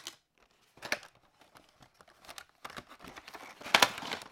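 A Funko Pop cardboard box being opened and its clear plastic insert slid out, with scraping, rustling and crinkling of cardboard and plastic and a few sharp clicks, loudest near the end.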